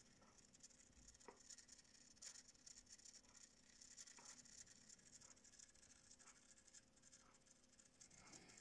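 Near silence: faint room tone with a few soft, scattered ticks.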